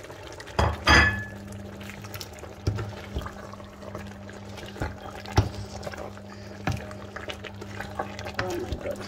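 Prawns being stirred into a pot of boiling yam porridge: a few sharp knocks of the spoon against the pot, the loudest about a second in, over bubbling, watery cooking sounds and a steady low hum.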